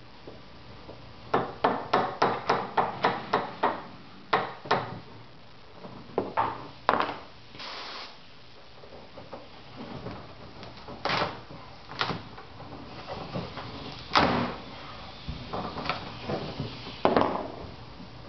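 A small hammer tapping on a fiberglass mold to loosen it: a quick run of taps about four a second, then scattered single knocks and a short scrape.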